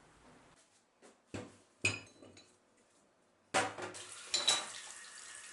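Metal parts clinking against each other and a hard surface: two sharp clinks, then a longer clattering run from about halfway in.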